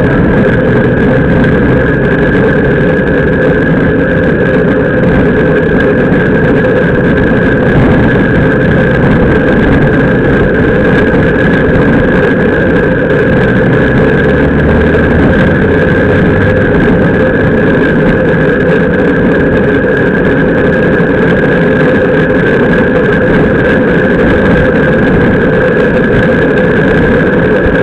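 Constant wind rush and road noise picked up by a bicycle-mounted action camera at racing speed, a loud, steady, unchanging hum and rumble.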